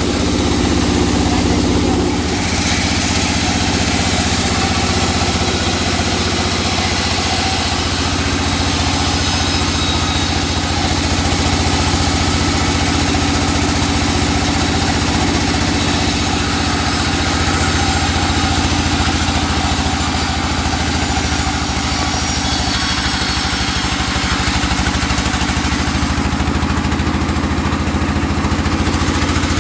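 Engine of a wood-sawing machine running steadily, idling with no cut in the wood; its note changes a little about two seconds in.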